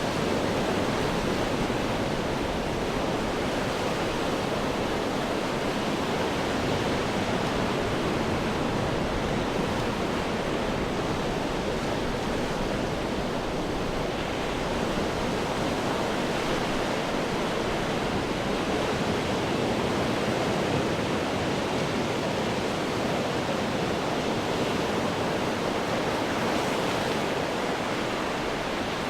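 Ocean surf washing against rocks in a steady, continuous rush of noise, swelling and easing only slightly.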